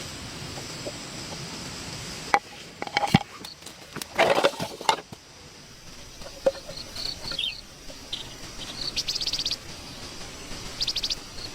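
A few sharp knocks and a short, loud rustling burst, then repeated high chirps with two quick buzzing trills from a small animal.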